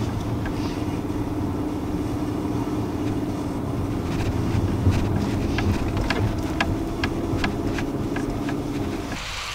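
Car driving up a mountain road, heard from inside: steady engine and road rumble with a level hum and a few light ticks. The rumble drops away just before the end.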